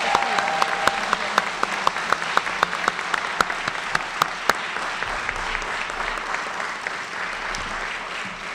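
Audience applauding, a steady mass of hand claps that gradually dies down over the last few seconds.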